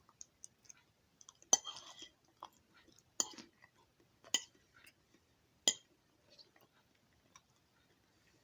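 A metal utensil clinks against a dish four times, with a short ring each time, about a second to a second and a half apart. Quiet chewing runs between the clinks.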